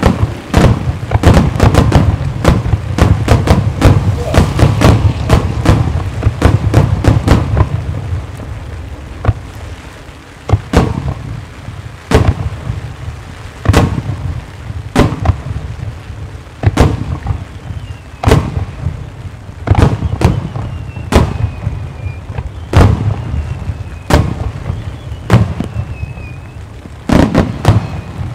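Aerial fireworks (a starmine): a fast barrage of shell bursts for about the first eight seconds, then single booms about a second or so apart.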